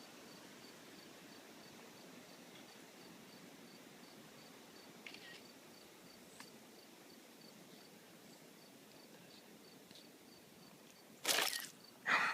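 Quiet outdoor ambience with an insect chirping faintly and evenly, about three high pulses a second. Near the end comes one sudden loud noise.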